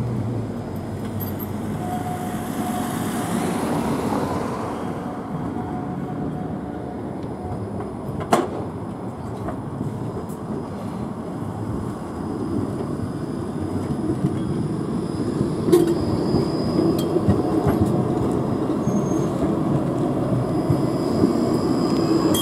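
Škoda 26T low-floor tram running on curved track and passing close by, its rolling and traction noise growing louder as it approaches, with a sharp click about eight seconds in and another a little before sixteen seconds.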